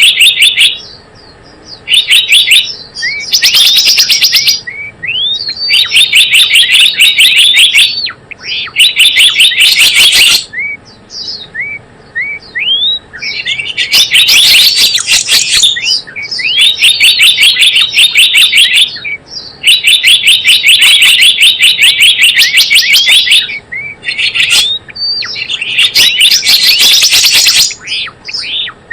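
Recorded song of a gelatik bloong, a small Indonesian songbird, played as a trapping lure and training call: loud bursts of rapid, high chattering trills, each a second or two long, separated by short single rising chirps.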